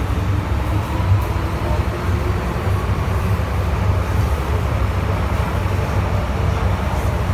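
MTR M-Train electric multiple unit heard from inside the carriage, pulling out of a station: a steady, loud rumble of wheels and running gear on the track.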